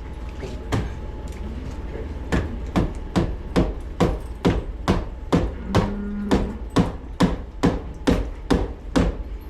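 Hand hammer pounding a part loose from the burst water line. One blow, then from about two seconds in a steady run of blows, about two a second.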